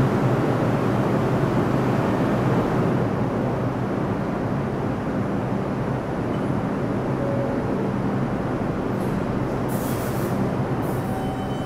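R142 subway train standing at the platform, humming steadily over a dense rumble, with short bursts of air hissing about nine to eleven seconds in. Near the end the traction motors start to whine as the train begins to pull out.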